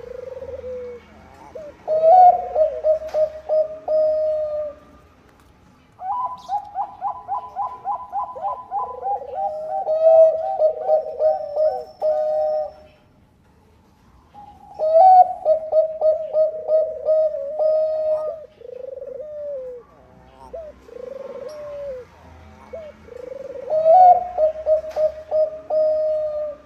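Bangkok-type zebra doves (perkutut) cooing: phrases of quick stuttering notes that run into longer held coos, one phrase after another with short pauses between.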